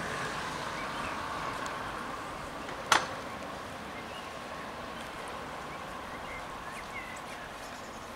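Steady outdoor hiss while the hand-worked wooden level-crossing gates are swung across the road, with a single sharp knock from the gates about three seconds in.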